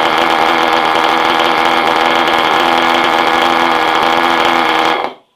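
A machine's motor running steadily, cutting off abruptly about five seconds in.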